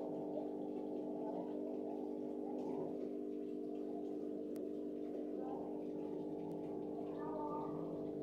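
Background music: a sustained chord held steady, with a few faint higher notes near the end.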